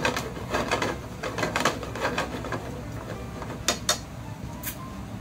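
Wooden spatula stirring and scraping thick cream sauce with bacon and mushrooms around a coated frying pan, in quick repeated strokes for the first two and a half seconds. Then the stirring eases, and a few sharp knocks follow: two close together and a third about a second later.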